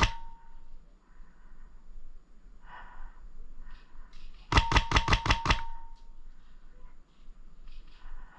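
Airsoft gun firing a quick burst of about eight shots in roughly a second, about halfway through.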